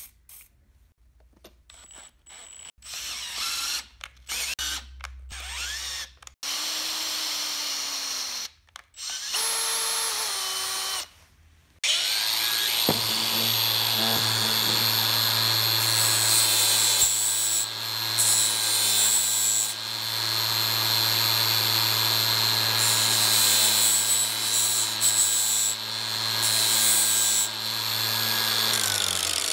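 An electric drill running in short stop-start bursts, drilling into a steel bar held in a vise. About halfway through, an angle grinder starts, runs steadily at speed and winds down at the end.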